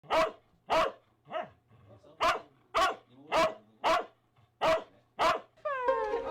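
A dog barking repeatedly: about nine sharp barks, roughly one every half second or so, one of them weaker than the rest. Music with plucked strings comes in near the end.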